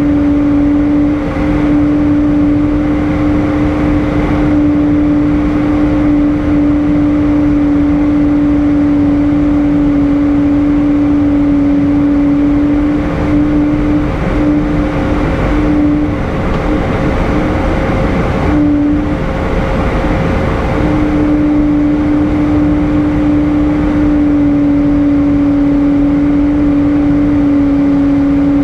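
Airbus A320 cabin noise in flight: a steady roar of jet engines and rushing air with a constant hum running through it. For several seconds in the middle the hum wavers and breaks up before settling again.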